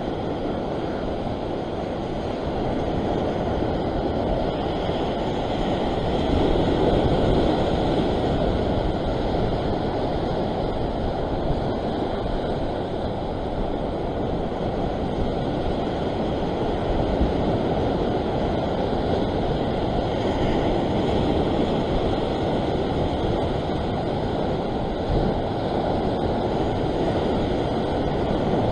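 Ocean surf breaking and washing against a rock ledge: a steady rush of water that swells louder now and then, with wind on the microphone.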